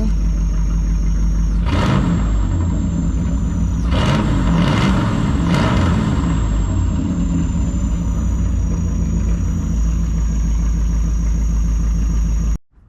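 1967 Ford Thunderbird's 390 FE V8 running at idle, revved in a few short blips between about two and six seconds in, then settling back to a steady idle. The freshly tuned engine is sounding pretty good. The sound cuts off abruptly near the end.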